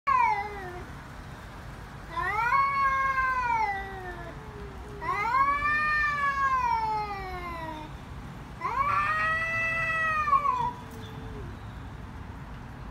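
Domestic cats yowling in a face-off: a short falling wail at the start, then three long, drawn-out yowls, each rising and then falling in pitch over two to three seconds. This is the threatening caterwaul of a territorial standoff.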